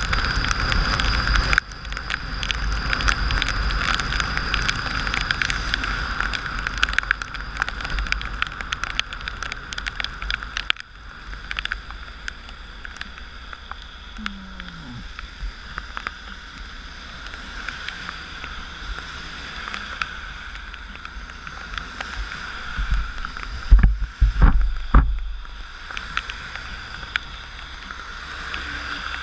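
Wind and rain noise on a motorcycle-mounted camera riding a wet road in heavy rain: heavy wind rumble and rushing spray at speed that drops sharply about eleven seconds in as the bike slows into traffic, with a few heavy low wind thumps near the end.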